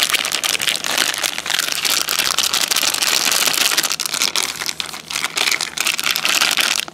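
A plastic MRE flameless ration heater bag, holding the food pouches and water, being shaken hard: a dense, continuous crinkling rustle. The shaking is done to get the heater's reaction going.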